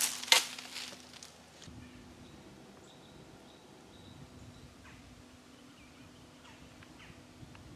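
A few sharp rustling knocks in the first second as the camera is swung round and handled. Then quiet woods with a few faint, short bird chirps.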